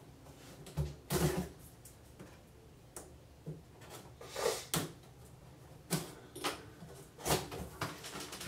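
Cardboard box being worked open at its end as its seals are broken: irregular taps, scrapes and cardboard rustles, with a louder cluster about a second in and another near the end.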